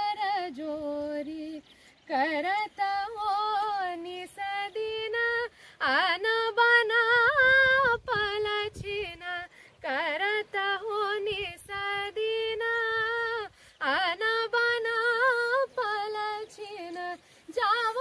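A woman singing a melody solo, with vibrato, in phrases of a few seconds separated by short breaths.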